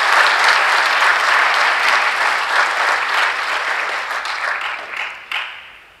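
Audience applauding, a dense steady clapping that fades away over the last second or two.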